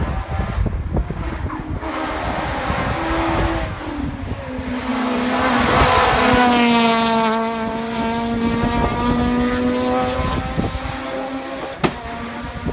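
Rally car accelerating hard toward the microphone, its engine note stepping up through gear changes. It passes close at full throttle, loudest about six to seven seconds in, and its pitch drops as it pulls away.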